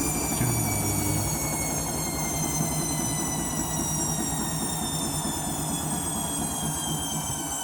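Candy washing machine's drum and motor on an intermediate spin, whining as the spin winds down. The whine falls slowly and evenly in pitch, and the machine gets a little quieter.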